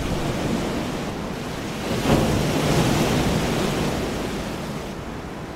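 Sea surf: a steady rush of waves that swells about two seconds in, then slowly fades.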